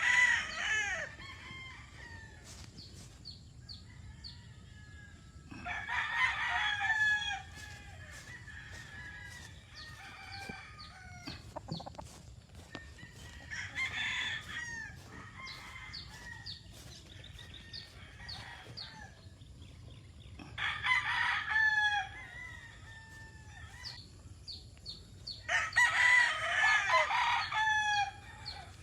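Roosters crowing again and again, one long crow about every six to seven seconds, with fainter clucking and calls from other chickens in between.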